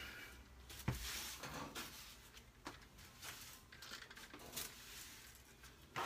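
Hand broom sweeping dryer lint across a tile floor toward a dustpan: faint, short brushing strokes, with a sharp knock about a second in.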